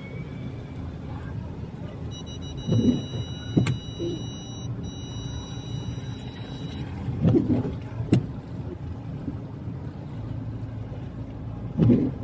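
Inside a moving vehicle: steady cabin rumble from the road and engine. Pairs of knocks, a dull one then a sharp click, repeat about every four to five seconds. A steady high electronic tone sounds for about four and a half seconds near the middle.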